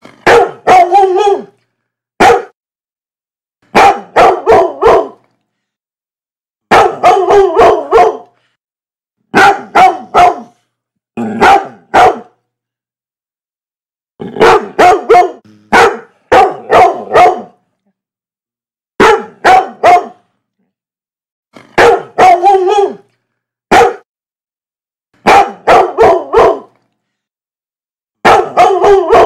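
A dog barking in short bursts of two to five barks, about a dozen bursts, with dead silence between them.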